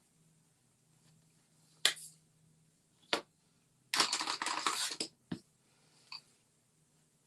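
Pencils being handled on a desk: a few sharp clicks as they are set down and picked up, and a rattle lasting about a second as they clatter together.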